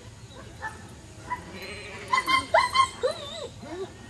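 German shepherd barking: a quick run of loud barks starting about halfway through, after a few fainter calls.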